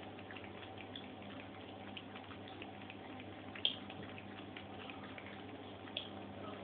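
Siberian cat lapping water from the spout of a pump bottle: a run of faint, irregular wet ticks from its tongue. Two sharper clicks stand out, one a little past the middle and one near the end.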